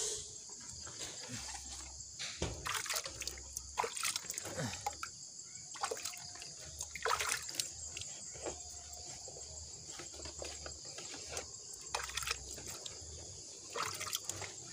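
Water splashing and dribbling in irregular short splashes as a potted bird's nest fern is washed down.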